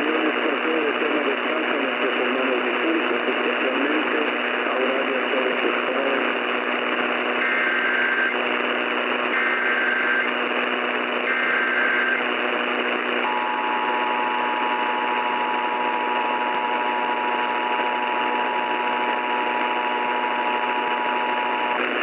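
Emergency Alert System test received on an AM radio through heavy static: three short bursts of warbling digital SAME header tones about two seconds apart, then the steady two-tone EAS attention signal, held for about eight seconds.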